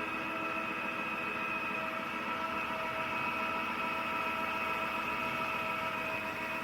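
Roborock F25 ACE wet-dry vacuum mop running in auto mode: a steady motor whine with several held tones over a rushing hiss.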